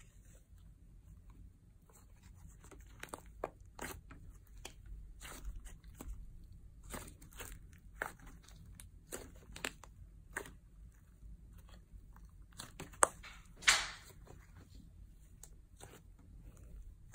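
Blue slime mixed with Model Magic clay squished and pressed by hand on a tabletop: irregular soft crackles and pops as it is worked, with two louder pops late on.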